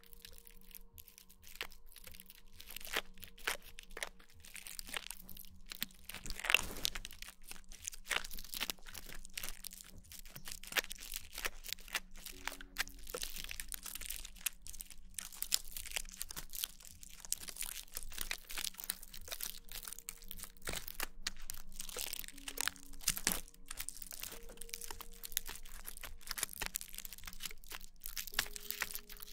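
Close-miked ASMR scratching and rubbing on the microphone: a dense, continuous crackle of small clicks and crinkles.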